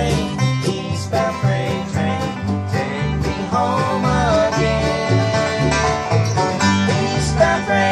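Bluegrass jam on banjo, acoustic guitars and upright bass, with steady picking over plucked bass notes that change about twice a second.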